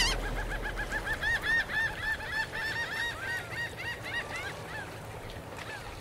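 Gulls calling: a fast run of short, arched yelping calls, several a second and overlapping in the middle, fading out after about five seconds.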